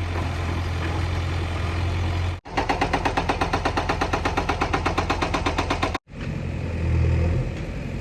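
JCB 3DX backhoe loader's diesel engine running steadily. From about a third of the way in to about three-quarters, a rapid even pulsing of about six beats a second is heard. The sound cuts out abruptly twice.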